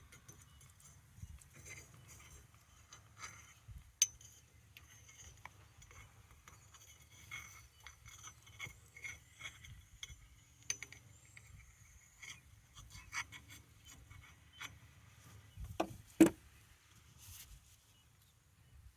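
Scattered light metal clinks and rubbing as a greased part of an old sawmill driveline is handled and worked onto its shaft. A sharper tick comes about four seconds in, and a louder knock about sixteen seconds in.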